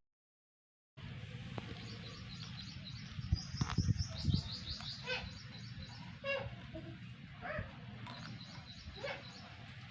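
Birds chirping in quick trills of high, repeated notes over a steady low rumble, after about a second of silence; a few soft knocks come near the middle.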